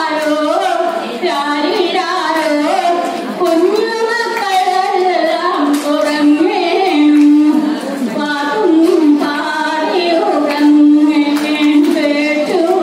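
A woman singing solo into a microphone, her voice carried over loudspeakers. The melody is slow, with several long held notes.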